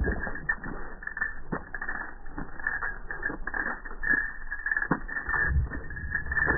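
Man and dog wading out of shallow lake water onto a pebbly shore: irregular splashing, sloshing steps and knocks, with a low rumble building near the end.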